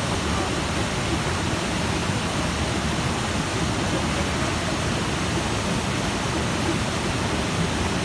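Small waterfall pouring over boulders into a pool: a steady, even rush of falling water.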